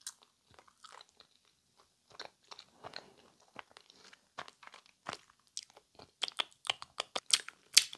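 Close-miked chewing of a peelable gummy candy: wet mouth clicks and smacks, sparse at first, then coming faster and louder over the last two seconds.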